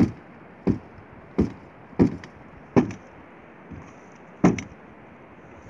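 Metal bucket of a homemade bicycle-wheel snow loader knocking as it is jolted back and forth at the roof edge: six sharp knocks, about two-thirds of a second apart, with a longer pause before the last.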